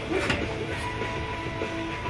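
Rock music playing, with guitar.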